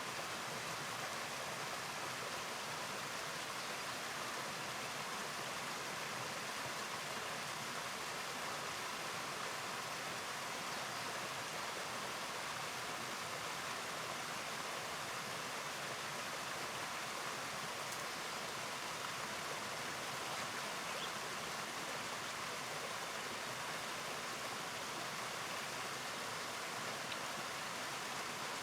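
Steady rushing of river water, an even hiss with no splashes or knocks.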